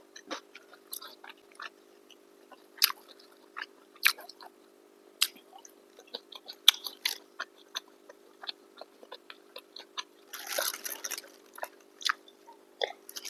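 Chewing and mouth sounds of people eating chicken biryani: scattered short smacks and clicks over a faint steady hum, with a longer noisy burst about ten seconds in.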